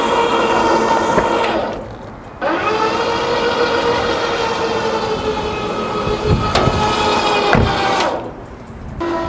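Train horn sounding in long blasts: a steady multi-note chord held for a couple of seconds, a short break, then a long blast of about six seconds, breaking off again near the end.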